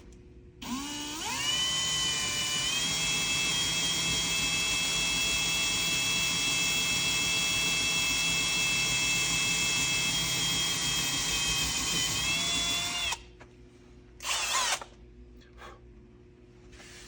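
Kobalt cordless drill boring a large hole through the wall into a wooden board behind it: the motor spins up with a rising whine about a second in, runs steadily under load, and stops about 13 seconds in. A brief scraping rush follows shortly after.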